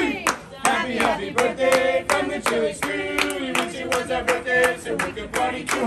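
A group of voices singing a birthday song together, clapping in time at about three claps a second.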